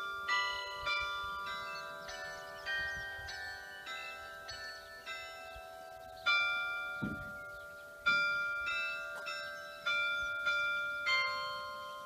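Church tower bells ringing: single strikes roughly once a second, each at a different pitch and ringing on under the next.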